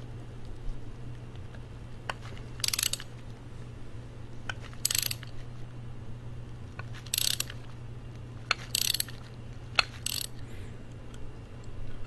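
Hand ratchet with an 8 mm five-point socket unscrewing tight side caps from an electric car's drive inverter housing: five short bursts of ratchet clicking a second or two apart as the handle swings back, with single clicks between, over a low steady hum.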